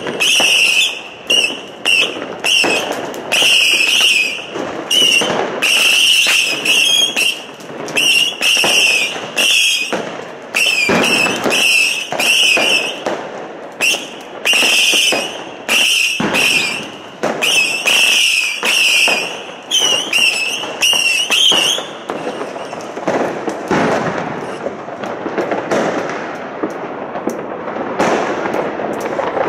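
Fireworks going off all around. For about the first twenty seconds a string of high whistles, each lasting under a second, sounds over crackling and bangs. After that it turns into a dense spread of crackling and bangs.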